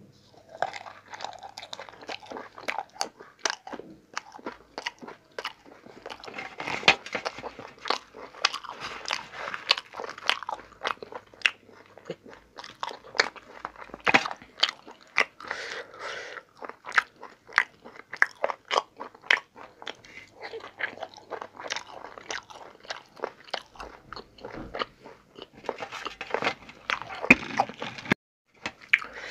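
A man eating close to the microphone: a steady stream of wet chewing, biting and lip-smacking sounds as he chews mouthfuls of paratha with potato sabji. It breaks off briefly near the end.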